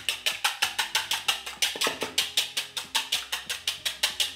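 Wire whisk beating egg whites in a bowl by hand, its wires clicking against the bowl side in a fast, even rhythm of about five strokes a second. The whites are being whipped toward soft peaks.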